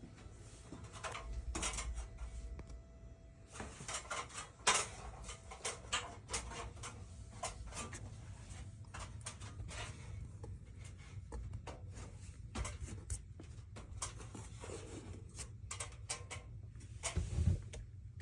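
Irregular knocks, clicks and rustling from handling and movement, over a steady low hum.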